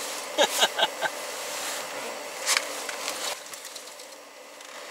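A man's short bursts of laughter in the first second, then a faint steady hiss with a low hum.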